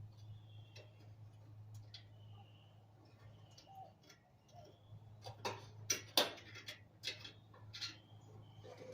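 Scattered sharp clicks and taps of a screwdriver on the dryer's sheet-metal and heating-element parts as a piece is pried loose, most of them bunched in the second half, over a steady low hum.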